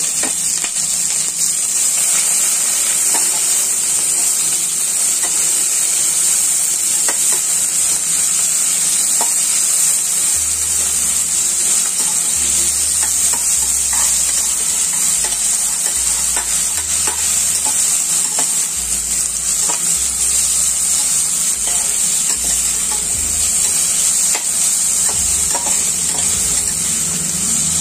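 Sliced onions frying in oil in a stainless steel pressure cooker, a steady sizzle, with scattered clicks and scrapes as a perforated steel ladle stirs them against the pot.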